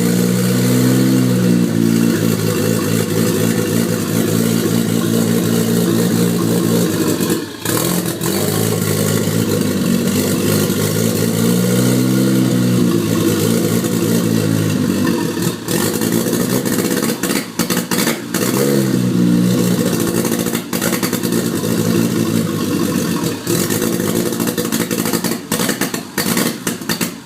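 Toyota 1JZ straight-six engine running and being revved up and down several times. It misfires and hesitates, with brief stumbles and drops in the sound, most often near the end.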